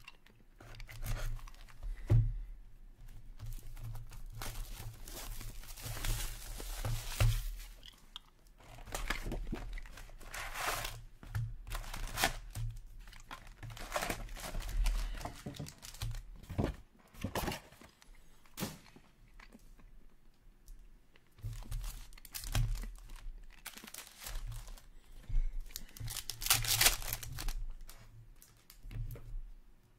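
Packs from a 2022-23 Upper Deck Series Two hockey card box being torn open by hand, their wrappers crinkling as the cards are pulled out. A run of irregular rips and rustles.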